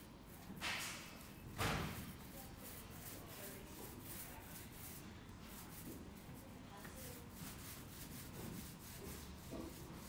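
Small paint roller rubbing and rolling over a painted wall: faint scratchy rubbing, with two louder brushing sounds about a second apart near the start, the second the louder.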